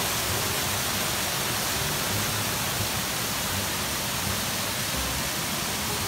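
Water pouring steadily over a small concrete weir step into a shallow stream pool: an even, unbroken rush heard close up.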